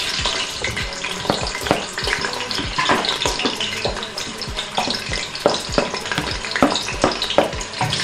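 Chopped onions sizzling in hot oil in a stainless-steel pot as they are scraped in off a plastic plate and stirred, with repeated irregular clicks and knocks of the spoon against the plate and pot.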